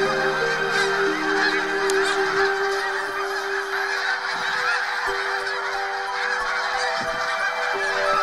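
A huge flock of snow geese calling all at once: a dense, unbroken din of overlapping honks at a steady level.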